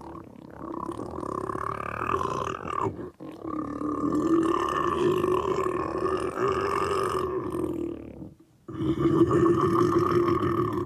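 A voice actor making guttural monster vocalisations from the throat. They come as three long, sustained growls with short breaks about three seconds and eight and a half seconds in.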